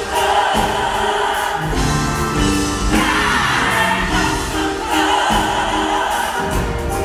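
Gospel choir singing live in full harmony, with long held chords.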